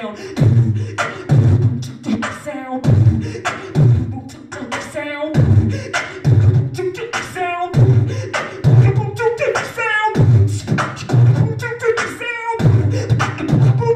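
A woman beatboxing into a handheld microphone over a PA: a steady beat of deep bass kicks a little faster than one a second, with sharp snare and hi-hat clicks between them. Short wavering sung notes ride on top of the beat every couple of seconds.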